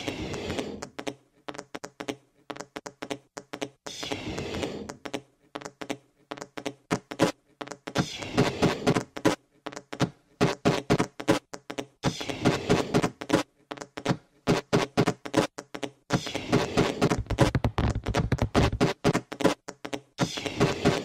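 Electronic music built from rapid, dry clicks and ticks, with a fuller pulsing layer returning about every four seconds. A deep bass comes in about three-quarters of the way through.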